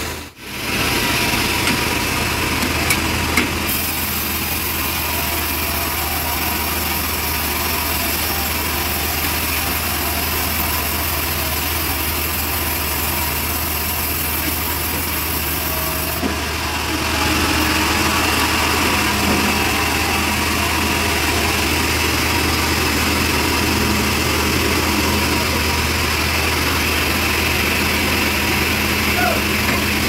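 Homemade log bandsaw sawmill running steadily: a constant low machine hum under a hiss, the hiss changing about four seconds in and again around sixteen seconds.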